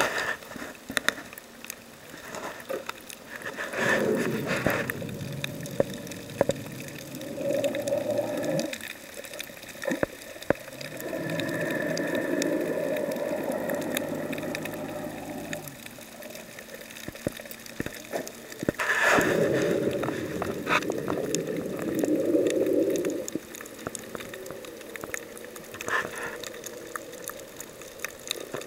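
Muffled underwater water noise, rushing in surges a few seconds long, with scattered sharp clicks throughout.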